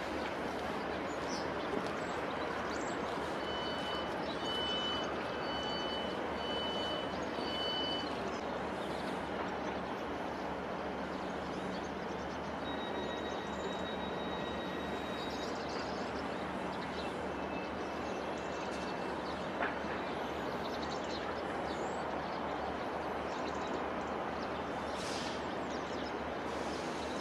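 Class 156 diesel multiple unit standing at a platform with its underfloor Cummins diesel engines idling steadily. A short run of about five high beeps a few seconds in, then a single held high tone a little later.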